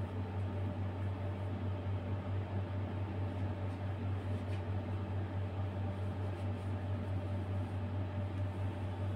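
Steady low machine hum with a faint hiss over it.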